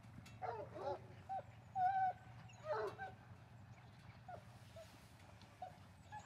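A pack of bloodhounds giving tongue: short, faint yelps and bays from several hounds. The calls come thickest in the first three seconds and thin out after. The hounds are speaking on the line of a human runner's scent in a clean-boot hunt.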